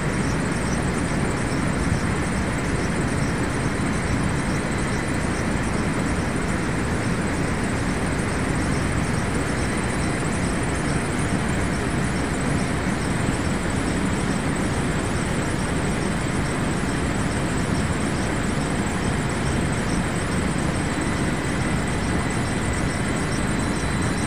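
Steady rushing noise, even throughout, with no separate knocks or clicks and a faint high whistle.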